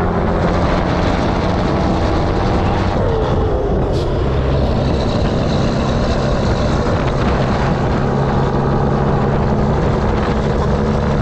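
Volvo N12 truck's 12-litre straight-six diesel running under way with a loud open twin exhaust, with wind rushing past the microphone. The engine note changes about three seconds in and steadies again a couple of seconds later.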